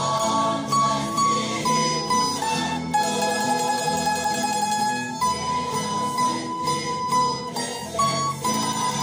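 Mandolin playing a slow hymn melody (the first-voice part) in long held notes that change every half second to two seconds.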